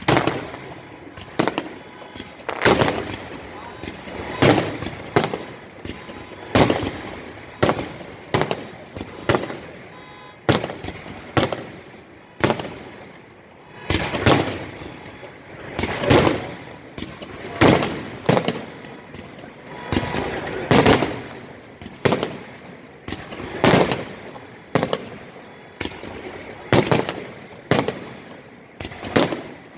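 Fireworks shells bursting overhead in a steady series of loud bangs, about one or two a second, each trailing off in a short rumbling echo.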